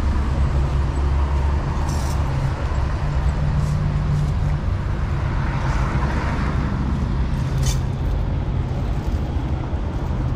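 A heavy vehicle's engine running steadily at low revs, with a rush of noise that swells and fades around the middle and two short clicks.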